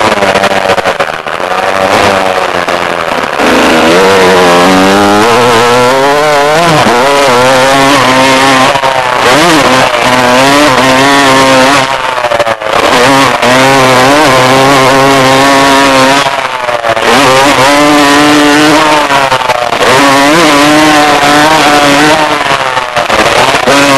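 Motocross dirt bike engine heard from an onboard camera, its pitch climbing and falling as it is ridden hard through the gears, with the throttle shut off briefly a few times, over a constant rushing hiss.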